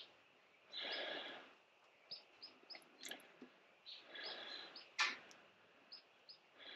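Faint bird chirps, short and high, in little runs of two or three, with a few soft clicks. Soft rushing swells about a second long come every three seconds or so.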